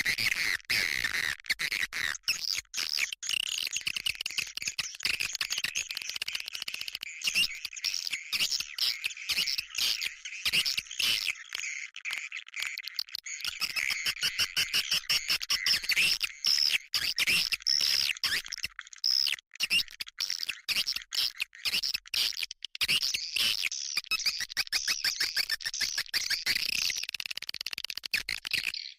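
Swiftlet lure-call recording: many swiftlets twittering and chirping densely without a break, with rapid clicking strokes throughout. It is the kind of call sound played to attract swiftlets.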